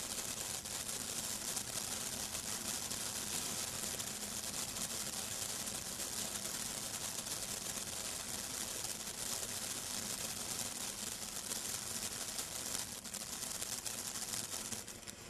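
Brothers Fireworks 'Little John' 200 g fountain spraying sparks: a steady loud hiss with dense, fine crackling, dropping in level near the end.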